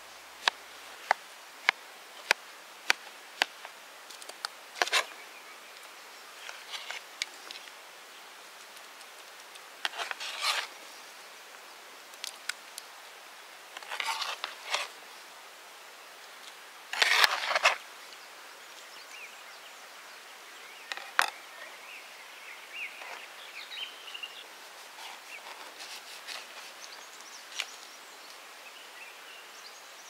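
Kitchen knife chopping peeled dragon fruit on a plastic tray: sharp taps of the blade on the tray about every half second for the first few seconds. After that come scattered louder rustling and handling noises as the fruit pieces are gathered up.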